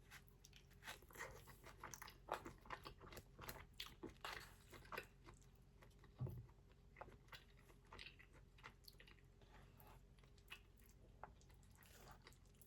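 Quiet close-up chewing and eating sounds of a person eating pepper steak and rice: irregular small mouth clicks and smacks, busiest in the first half, with a soft low bump about six seconds in.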